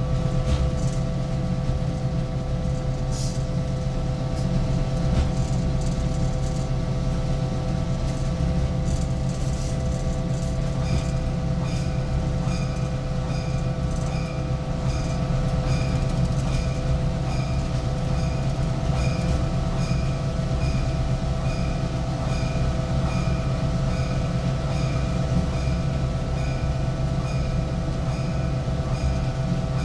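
Inside the cab of diesel locomotive No. 4266 underway: the engine's steady drone with a constant whine over it. About a third of the way in, a regular high ticking starts, a little under two ticks a second.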